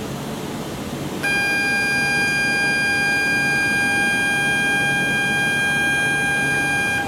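Electronic departure signal on a Shinkansen station platform: one steady buzzing tone that starts about a second in and cuts off just before the end. It signals that the train standing at the platform is about to close its doors and depart.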